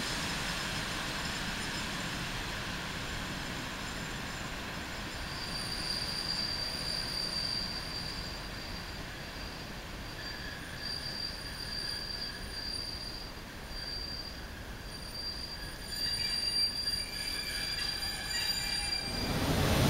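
A train running on the rails, its wheels giving a thin, high, steady squeal that comes and goes over a low rumble. Near the end it gets busier, with more squeal tones.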